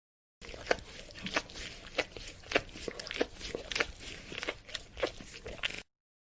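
Dog licking: wet, smacking tongue laps, about two a second, starting suddenly and cutting off abruptly near the end.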